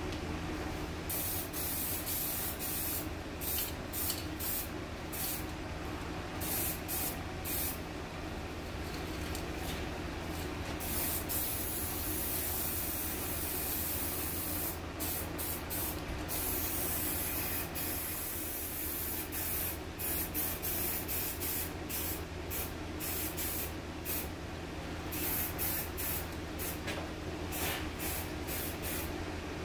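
Aerosol spray-paint can spraying paint onto a stove's insert surround, hissing in many short bursts with a longer continuous pass about a third of the way in, over a steady low hum.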